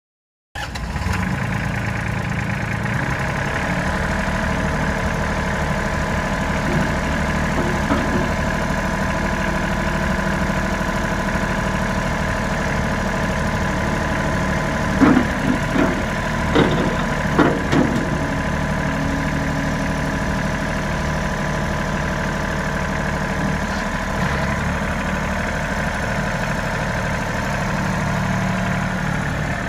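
Branson 3510i compact tractor's diesel engine running steadily. A handful of short, louder knocks come about halfway through.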